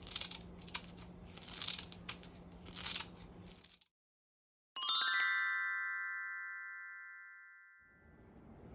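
Edited-in sound effect: a quick upward run of bright chime notes, like a glockenspiel sweep, that rings on and fades out over about three seconds after a moment of total silence. Before it, the end of soft background music with three short hissing swishes.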